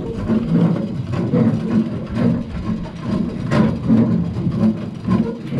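Steady low rumble of the fishing boat's machinery, pulsing unevenly, with a few sharp knocks and clicks as a hook is worked free of a landed fish on deck, the loudest about three and a half seconds in.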